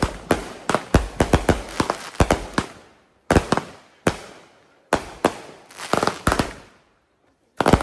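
Consumer fireworks going off: a rapid string of sharp bangs for about two and a half seconds, then single bangs roughly a second apart, with a last bang near the end.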